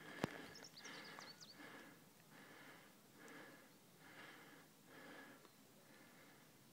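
Faint, rhythmic heavy breathing of a person winded from jogging, about one breath a second, with a click at the start and a few short, high bird chirps in the first second or so.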